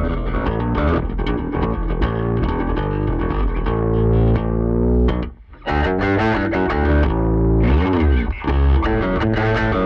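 Jackson Kelly KBX electric bass played through distortion effects, a riff of sustained notes. It breaks off briefly about five and a half seconds in, then comes back with a quick slide down and up in pitch.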